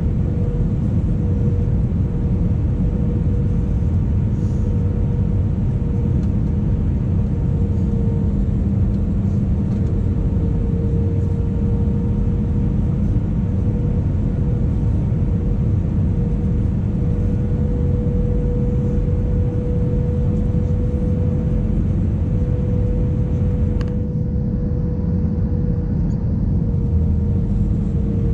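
Steady cabin noise inside an Airbus A318 airliner on its descent: a deep rush of airflow with a steady hum from the turbofan engines. Near the end the higher hiss thins out a little.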